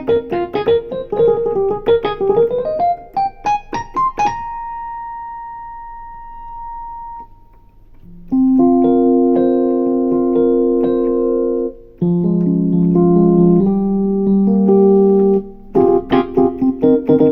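Roland VR-09 stage keyboard played on its vintage electric piano tone: a quick run of notes climbing in pitch, one high note left to fade, then two long held chords, and a burst of quick notes again near the end.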